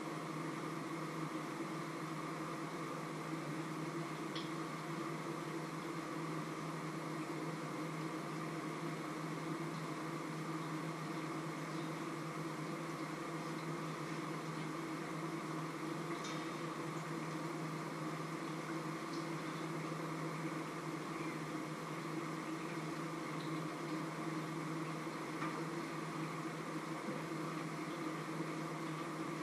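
Steady mechanical hum over an even hiss, holding one level throughout, with a few faint ticks.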